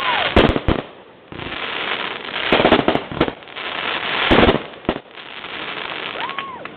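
Fireworks exploding overhead: three loud booms about two seconds apart, each followed by a dense spell of crackling.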